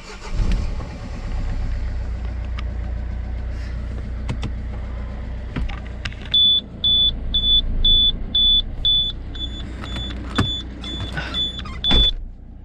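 Citroën C4 Picasso running with a steady low rumble and no rattle from underneath, its loose exhaust mounting pads now refitted. A few sharp knocks come through it. From about halfway, a high electronic beep repeats two to three times a second.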